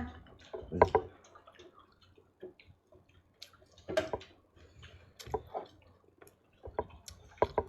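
Irregular light clicks and taps, a few of them louder knocks, one about four seconds in and another near the end.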